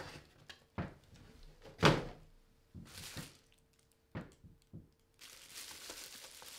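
Cardboard box and bubble-wrap packaging being handled: a few knocks and thumps, the loudest about two seconds in, then soft crinkling of bubble wrap near the end.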